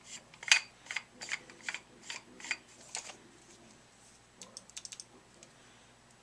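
Cyborg RX paintball marker's trigger clicking as it is pulled over and over, with the marker switched off, about two or three clicks a second, then a few fainter quick ticks.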